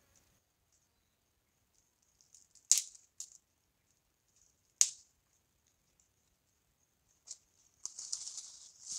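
Dry twigs snapping and crackling at a small stick fire being kindled: two sharp snaps about three and five seconds in, then a run of fine crackling near the end.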